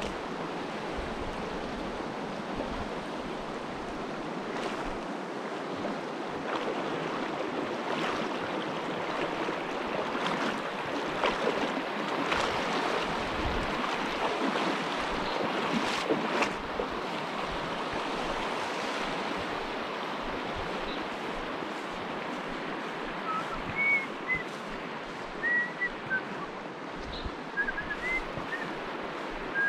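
Small mountain stream running over shallow riffles: a steady hiss of flowing water. Near the end, a few short high whistled chirps sound over it.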